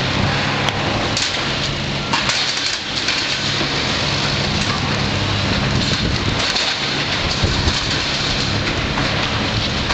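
Komatsu hydraulic excavator demolishing a building: its diesel engine running steadily under continual crunching, cracking and clattering of splintering timber and sheet metal as the bucket tears into the debris.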